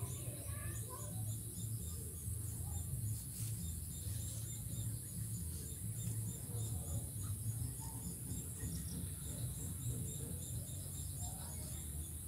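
Field insects chirping: a high, even pulse repeating about three times a second over a continuous high buzz, with a low rumble underneath.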